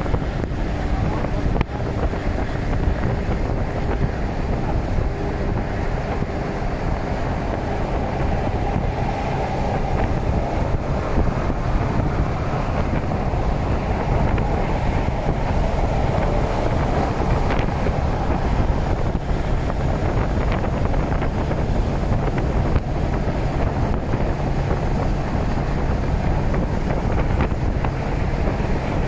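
A steady low rumble with wind buffeting the microphone.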